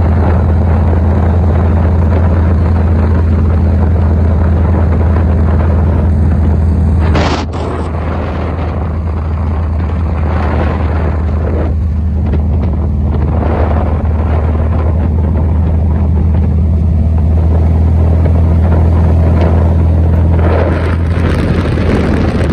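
VW Super Beetle's air-cooled flat-four engine running steadily under way, heard from inside the cabin along with road and wind noise. A brief knock about seven seconds in, after which it runs slightly quieter for a few seconds.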